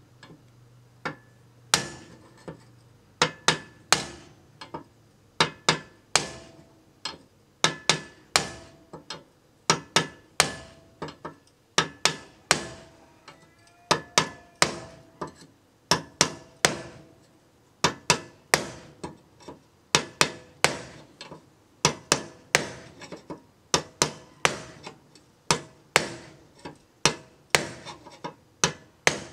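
Steady hand-hammer blows on a hand-held steel tool set against an old iron carriage leaf spring, about two strikes a second. Each hit has a short metallic ring. The spring is being knocked apart for reforging.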